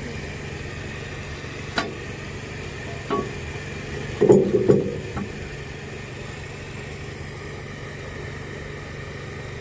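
An engine running steadily at idle, with a few sharp metal knocks and clanks over it, the loudest a cluster about four seconds in.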